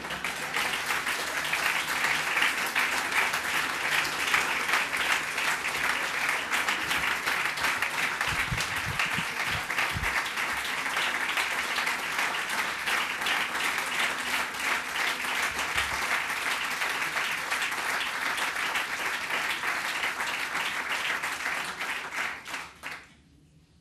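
Audience applauding at length: a dense, sustained clapping from a large crowd that dies away near the end.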